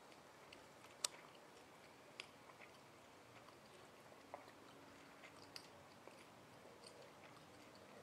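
Near silence with faint hiss and scattered soft clicks and ticks, one sharper click about a second in.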